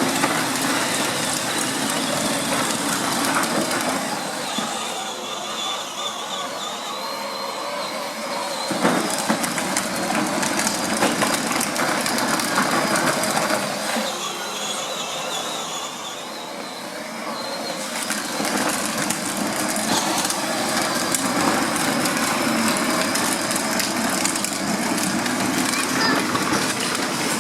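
Battery-powered toy monster trucks driving: small electric motors whining, the pitch wavering as they speed up and slow down, over a steady grinding rumble of wheels on rough ground, with an occasional knock.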